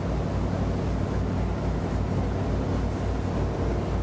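Tour boat's inboard engine running steadily under way, a low hum with a regular throb.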